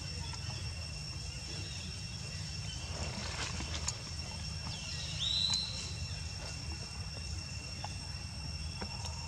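Steady high-pitched drone of insects, with a low rumble beneath. About five seconds in, a single short high squeak rises and then holds briefly.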